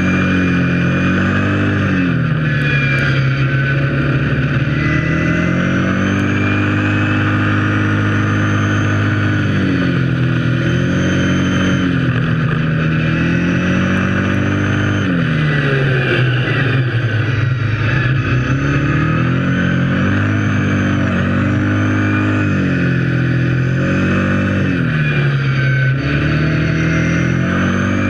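Kawasaki KFX 700 quad's V-twin engine running under way. Its engine speed falls and climbs again every few seconds as the throttle is eased off and reopened.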